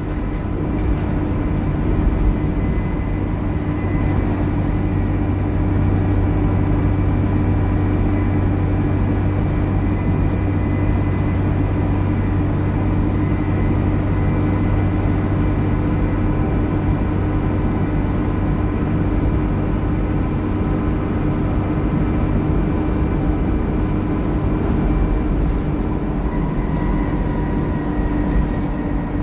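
Dennis Trident double-decker bus running steadily, a constant engine drone with a steady whine over it.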